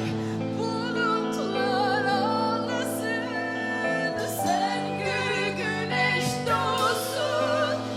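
Music: a woman singing long held notes with vibrato over sustained chords.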